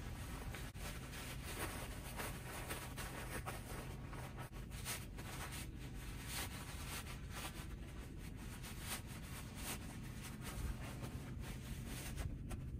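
Faint rustling and scraping of tent fabric and its carry bag as a rolled pop-up ice fishing tent is worked into the bag, over steady low background noise.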